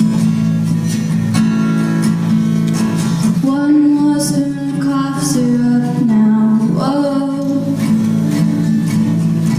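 Acoustic guitar strummed steadily, with a voice singing long held notes from about a third of the way in until near the end.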